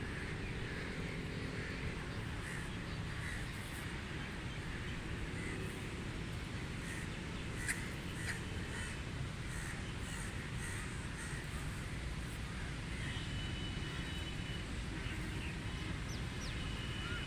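Crows cawing repeatedly, short harsh calls one after another, over a steady low background rumble.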